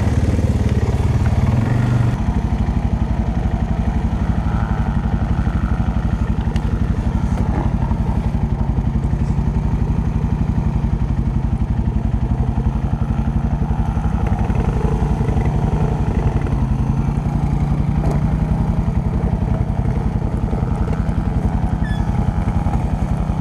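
ATV engine running close to the microphone, easing off about two seconds in and then idling steadily.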